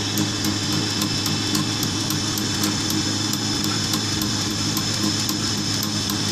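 Bangle diamond-cutting machine running, its rotating cutter cutting facets into a gold bangle turning on the chuck: a steady motor hum with a fast, regular high tick.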